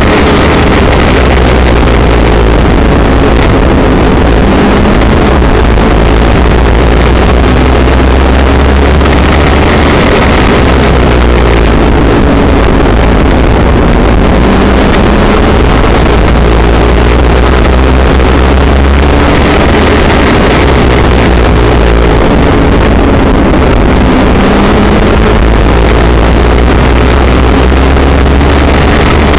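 Legends race car's motorcycle engine running hard under racing load, heard from inside the cockpit. It is loud throughout, its pitch rising and falling again and again as the car accelerates and lifts through the laps.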